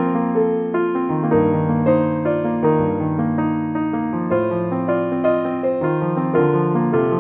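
Background music: a piano melody with chords, notes struck in a steady flowing rhythm.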